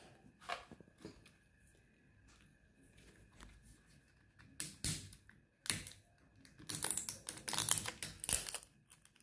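Fingers picking at and prying the plastic shell and wrapping of an L.O.L. Surprise toy ball, giving scattered small clicks and crinkles. About seven seconds in, a dense run of crinkling and clicking lasts a couple of seconds.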